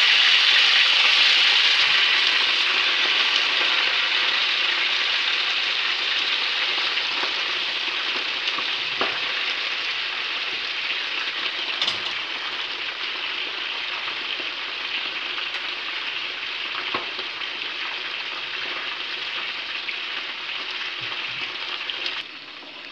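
Seared pork sizzling in the fat at the bottom of a clay cazuela under a heap of fresh quintonil greens, a steady frying hiss that slowly fades. The sizzle drops suddenly near the end as the pot is covered with its lid.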